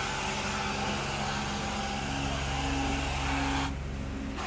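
Carpet-cleaning extraction wand drawn across carpet: a steady hiss of spray and suction over the running hum of the cleaning machine. The hiss cuts out briefly near the end, between strokes, while the machine keeps running.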